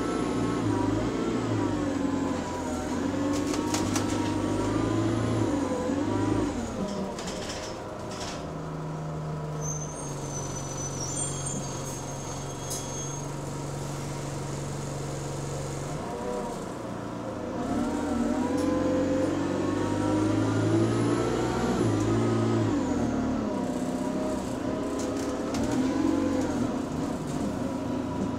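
Single-deck bus's diesel engine heard from inside the saloon, its moan rising and falling as the bus pulls through the gears, settling to a low steady note around the middle, then rising again about seventeen seconds in.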